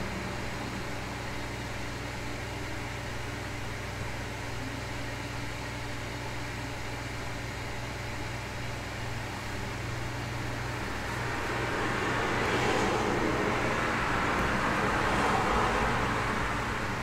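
Steady room noise with a low hum, and road traffic passing outside: the sound of passing cars swells up in the second half and eases off near the end.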